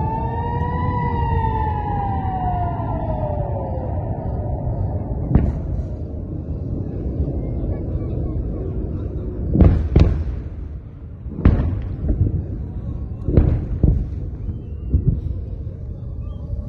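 Air-raid siren wailing, its pitch rising and then falling away over the first few seconds, over a steady low rumble. Then about seven sharp booms of distant explosions, the loudest near the middle, as missiles are intercepted in the sky.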